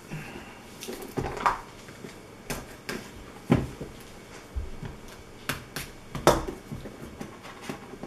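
A small cardboard product box being handled and turned over on a cloth-covered table: scattered taps, knocks and light scrapes, the sharpest knock a little over six seconds in.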